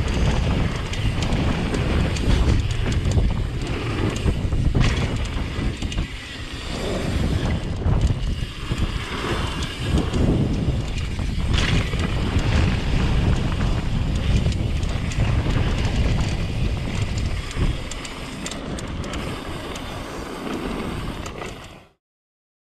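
Mountain bike riding fast down a dirt trail, heard on the bike-mounted action camera: wind buffeting the microphone over tyre rumble on the dirt, with a few sharp knocks from bumps. The sound cuts off abruptly near the end.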